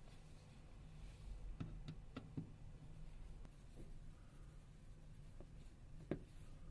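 Faint clicks and light scratching of a small Torx screwdriver working out the tiny Torx Plus screws of a smartphone's back housing, a few sharp ticks clustered early on and a couple more near the end, over a low room hum.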